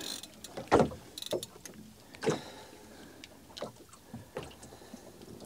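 Water lapping and slapping against the hull of a small fishing boat, with a louder slap about a second in and another a second and a half later, and a few light clicks between.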